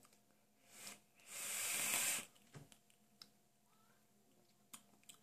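A breathy hiss of about a second, a vaper drawing on or blowing out a hit from an e-cigarette mod, followed by a few faint clicks.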